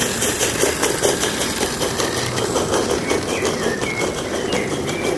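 A 16 mm scale live-steam garden railway train rolling past, with a quick, even ticking of about five beats a second.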